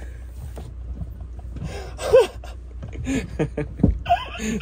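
Two men laughing hard and gasping for breath. The loudest laugh comes about two seconds in, followed by a run of short, choppy laughs. A steady low hum runs underneath.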